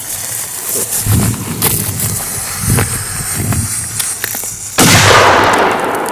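A firecracker goes off in an iced-over puddle almost five seconds in: one sudden, loud bang that dies away over about a second as the spray falls back. Before it there are only a few low thumps.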